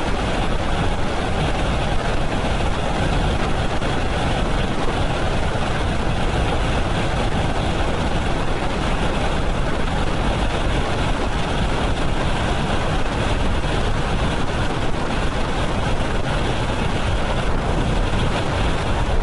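Steady rush of freefall wind buffeting a skydiver's helmet-camera microphone.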